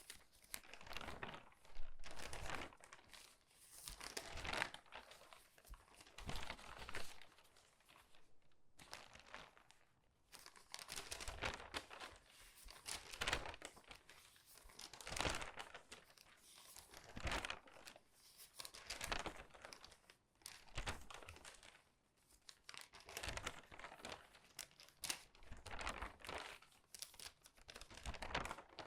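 Crinkly newspaper pages turned quickly one after another. Each turn is a burst of crackling, rustling paper, coming about every one to two seconds.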